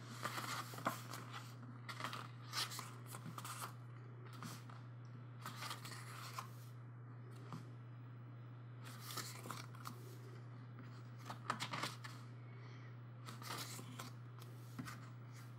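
Pages of a glossy album photo book being turned and handled, with short paper rustles and swishes every second or two, over a steady low hum.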